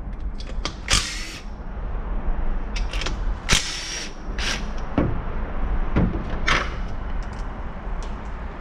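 Cordless drill spinning bolts out of a 62TE transmission's side pan in several short trigger bursts, the motor's pitch falling as it winds down after some of them, with small metallic clicks between.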